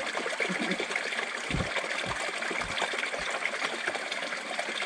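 Flowing water trickling and running steadily, with four low thumps about half a second apart from about one and a half seconds in.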